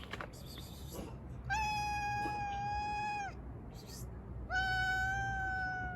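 Kitten meowing: two long, high meows held at a steady pitch, each nearly two seconds, the second starting about a second after the first ends. A short noisy burst comes just before them near the start.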